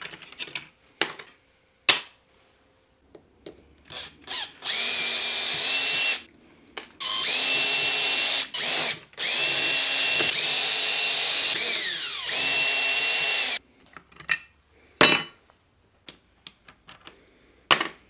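Cordless drill-driver running in several bursts of a second or two, driving out the screws of an angle grinder's gear head; the motor whine winds down at the end of some bursts. Clicks and knocks of small parts being handled come before and after.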